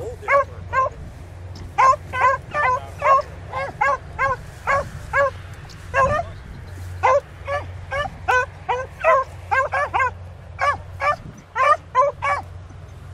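Beagles baying on a rabbit's track, giving short, quick barks about two a second with brief gaps.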